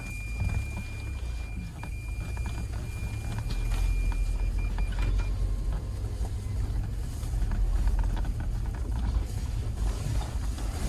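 Motor vehicle driving, a steady low rumble that grows louder about a third of the way in, with a thin steady high tone over the first half.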